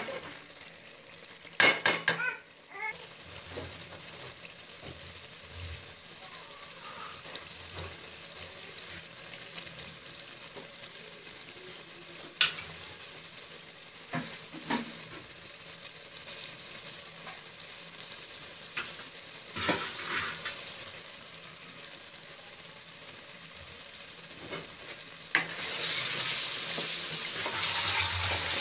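Chicken masala sizzling and frying in a pan while it is stirred. A metal spoon knocks against the pan several times in quick succession about two seconds in, then now and then after that, and the sizzle grows louder near the end.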